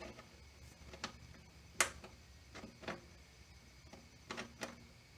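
A few scattered light clicks and taps of a small metal petcock valve being handled and fitted into a motorcycle gas tank, the sharpest one a little before two seconds in.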